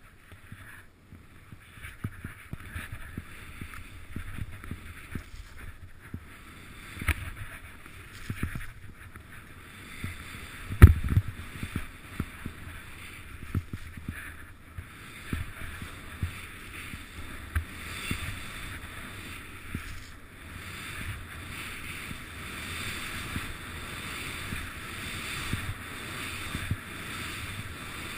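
Skis hissing and swishing through deep powder snow, with wind buffeting a body-worn camera's microphone and frequent low thumps as the camera is jolted; the loudest thump comes about eleven seconds in, and the rush grows louder toward the end.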